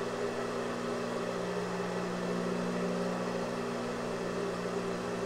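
Steady electrical hum made of a few even low tones over a faint hiss, unchanging throughout.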